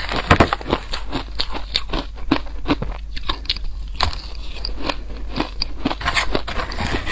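Close-miked crunching and chewing of soft shaved ice coated in green powder: dense, irregular crisp crackles as the ice is bitten and chewed. The metal spoon scoops through the ice in the plastic tub between bites.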